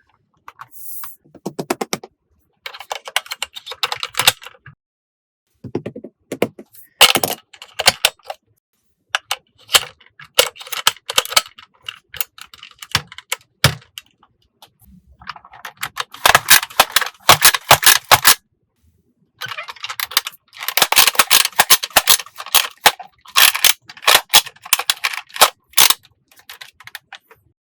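Toy packaging and plastic parts being handled: bursts of crinkling, rustling and sharp clicks and snaps, separated by short pauses.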